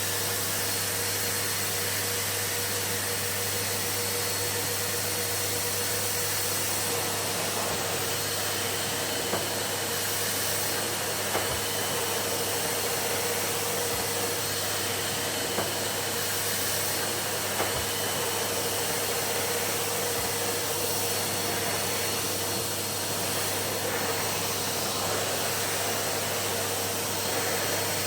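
Numatic cylinder vacuum cleaner running steadily, its motor giving a constant hum with a steady whine on top, with a few faint short clicks now and then.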